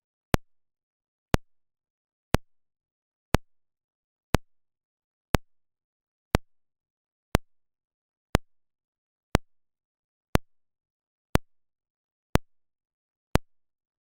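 Speaker polarity test signal: a single sharp click pulse repeated once a second, with silence between, used to check whether a speaker is wired in phase.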